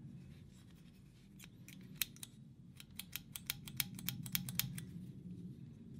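Rusty wire locking pliers worked by hand: a quick run of sharp metal clicks, about a dozen over three seconds or so, as the parts knock and snap together.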